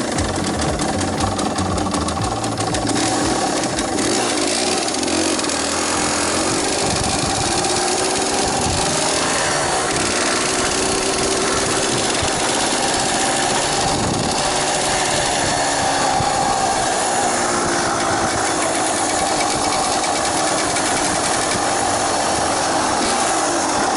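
Yamaha DT230 Lanza's single-cylinder two-stroke engine running while the bike is ridden, its note rising and falling as the throttle opens and closes, over a constant rushing noise.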